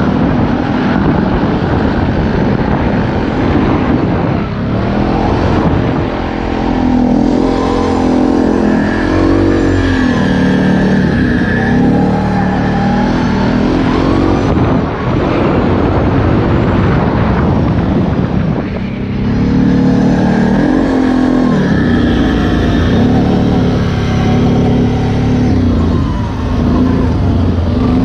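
Utility ATV engine running hard under throttle, its revs rising and falling again and again, with a few brief lulls where the throttle is let off. Other quads' engines are running close by.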